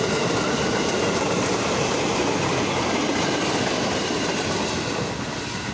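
KRL Commuter Line electric train passing close by: a loud, steady rumble of wheels on rails with faint high steady tones, easing slightly near the end.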